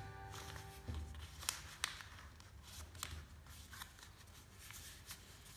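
A sheet of lined notebook paper being folded and creased by hand against a tabletop: faint rustling with a scattered handful of sharp crisp clicks. A music tail dies away about a second in.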